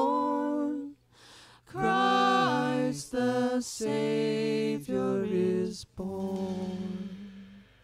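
Singing of a closing song phrase: several sung notes broken by short breaths, ending on a long held note that fades away near the end.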